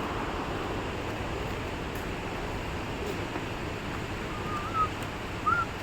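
Steady rushing noise of a waterfall's falling water, with two or three short high chirps near the end.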